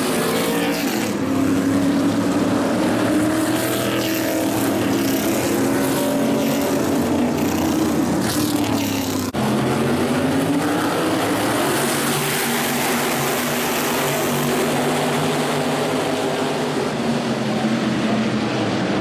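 Modified race cars' V8 engines running in a pack around the track, the pitch rising and falling as the cars speed up and slow. About halfway through the sound breaks off suddenly and picks up again at a different pitch.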